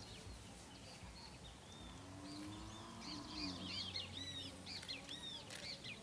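Faint chirping of many birds: short, arched high calls, sparse at first and becoming a busy chatter about halfway through.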